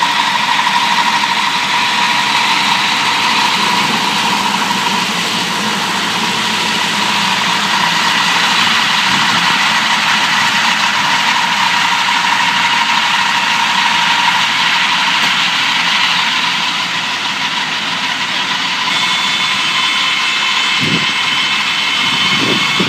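A mini round hay baler running steadily, with the steady drone of the engine driving it.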